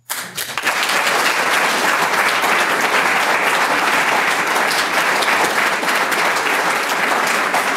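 Audience applauding: many people clapping, starting suddenly and reaching full strength within the first second, then holding steady.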